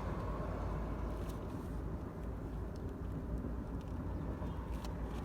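A Tahoe V8 idling steadily, just after a new spark plug has gone into cylinder one, which had been misfiring. A few faint clicks sound over the idle.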